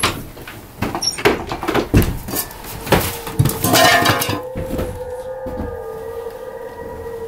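Knocks and clatters of old wooden boards, a window frame and loose objects being handled and moved. A steady droning tone comes in about three and a half seconds in and holds.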